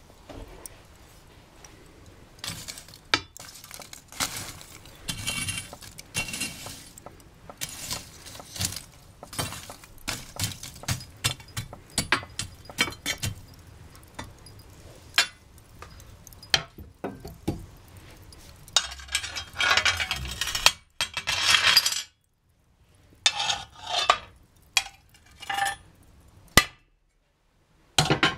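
Glowing birch charcoal in a wood stove being stoked with a poker: the coals clink and tinkle like glass, with a run of louder scraping about two-thirds of the way through. Near the end come a few sharp metal clanks as the stove is shut.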